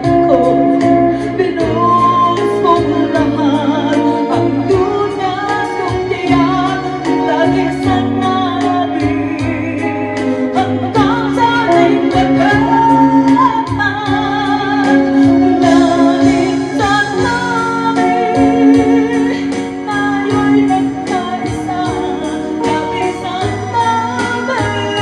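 Live pop song: a woman singing into a microphone over electric guitar and band backing with a steady beat.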